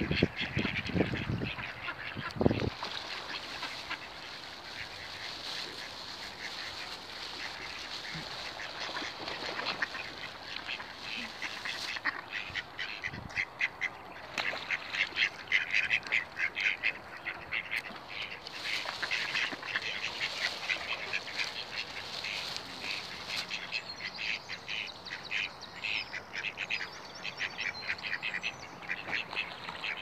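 A flock of mallard ducks quacking, many short calls in quick runs, thickest in the second half. A low rumble sounds in the first couple of seconds.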